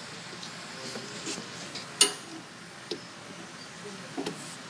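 A few sharp clicks and knocks from hands working at the trencher's tire, the loudest about two seconds in, over a faint steady background.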